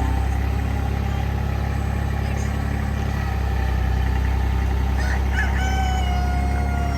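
An engine runs steadily throughout. About five seconds in, a rooster crows once, with a short opening and then one long, slightly falling note.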